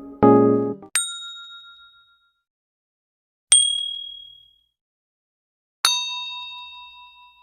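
Three single bell dings, each struck once and ringing out as it fades, each at a different pitch; the third, near the end, is the lowest and rings longest. A short electric-keyboard chord ends just before the first ding.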